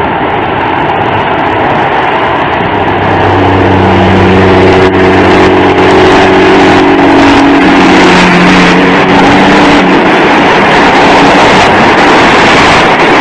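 Truck engine and road noise, loud and continuous, growing louder about three and a half seconds in, with a steady engine drone through the middle.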